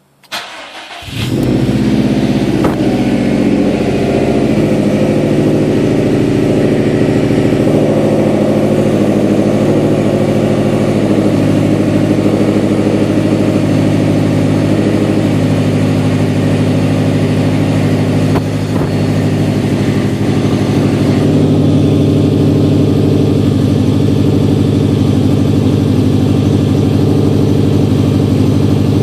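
Subaru STI turbocharged flat-four engine starting: a brief crank right at the start, catching within about a second, then idling steadily. About two-thirds of the way through the idle's note shifts slightly and its upper hiss drops away.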